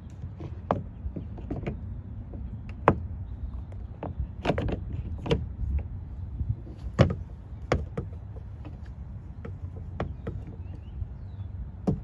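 2008 Cadillac CTS plastic exterior door handle clicking and knocking against the door's handle housing as it is worked into place by hand: a dozen or so irregular sharp taps, loudest about three and seven seconds in, over a low steady rumble.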